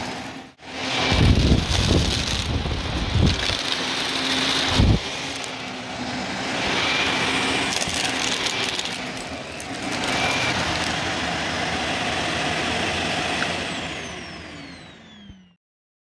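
Shark Navigator upright vacuum cleaner running on carpet with its brushroll, a steady motor hum with a high whine, broken by a few loud thumps in the first five seconds. Near the end the motor is switched off and winds down, its pitch falling until it stops.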